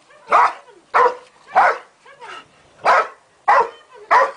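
A dog barking repeatedly: about seven barks in a steady run, a little under two a second.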